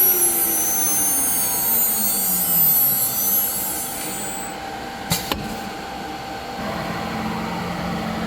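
CNC router spindle winding down after cutting: its whine falls steadily in pitch over about four seconds. Then come two sharp clicks about five seconds in, followed by a steady low hum.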